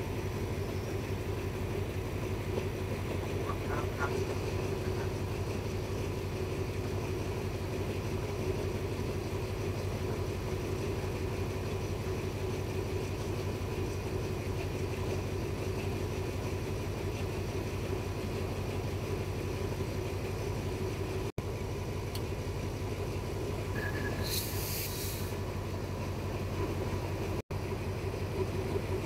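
Passenger train running slowly, a steady low engine hum and rolling rumble heard from an open carriage window. A short hiss comes about three-quarters of the way through.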